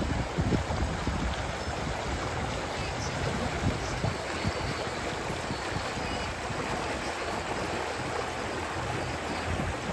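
Shallow river water rushing and babbling over a stony bed in small rapids: a steady, even rush.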